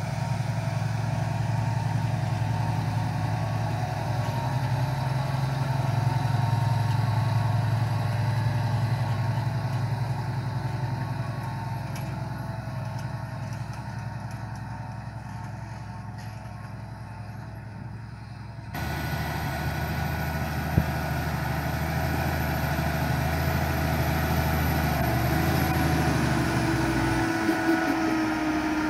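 Fendt 1050 Vario tractor's six-cylinder diesel running steadily under load while it pulls a cultivator through the soil. The sound grows louder and then slowly fades. About two-thirds through it switches abruptly to a closer, louder engine.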